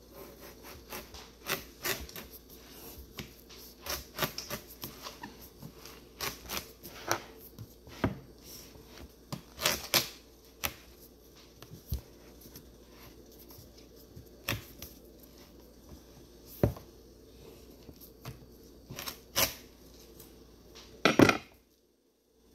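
Knife cutting through a whole watermelon's rind, giving irregular crisp cracks and knocks, with the loudest burst of cracking near the end before the sound cuts off suddenly.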